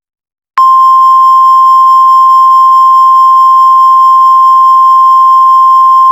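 Emergency Alert System attention tone: a single loud, steady high tone, the 1050 Hz National Weather Service warning alarm, starting about half a second in and holding without a break.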